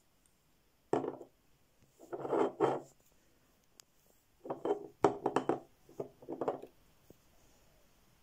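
A Chanel Coco Mademoiselle glass perfume bottle and its cap being handled: short knocks and rubbing clatters in a few clusters, as the bottle is set down and the cap is pulled off.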